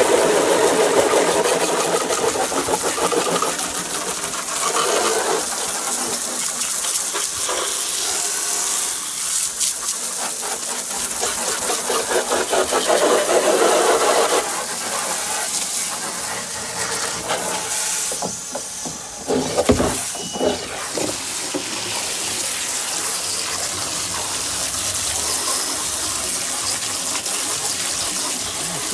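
Garden hose spray gun jetting water onto a plastic Waste Hog container and the paving: a steady hiss and splash of spray rinsing off the cleaning foam. About two-thirds of the way through it briefly dips, with a knock.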